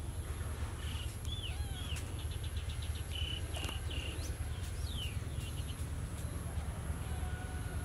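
Steady low background rumble with a faint steady high tone, broken by scattered faint high chirps and squeaks, a few of them short and flat, one arching and one falling.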